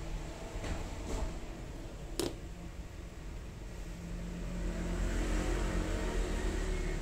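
Light ticks of a small brass watchmaker's tool, then a sharper click about two seconds in as it touches the metal watch case or is set down. After that comes rubbing handling noise from fingers gripping and lifting the watch case, all over a steady low rumble.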